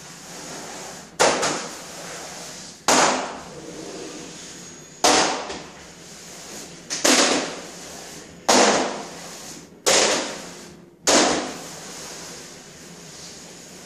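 Trowel spreading FRP adhesive on a fibreglass-reinforced plastic panel: seven strokes, each starting with a sharp hit and tailing off over about half a second, every second and a half to two seconds.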